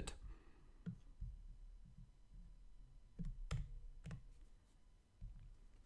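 A few faint, scattered clicks of a computer keyboard and mouse as lines of code are selected and deleted, the sharpest a little past halfway.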